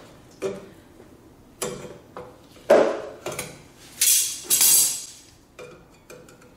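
Needle-nose pliers clinking against steel drum-brake springs and shoes: a string of sharp metal clinks, with two longer scraping sounds about four to five seconds in.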